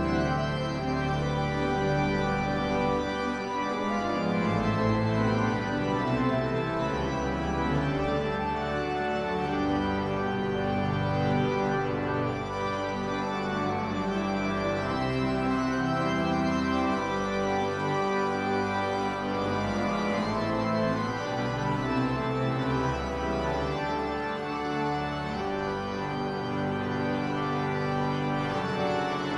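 Church pipe organ playing, with full sustained chords over a strong bass line, the harmony changing every second or two.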